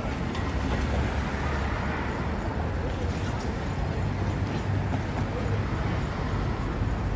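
Steady low vehicle engine rumble at idle, under an even wash of city street noise.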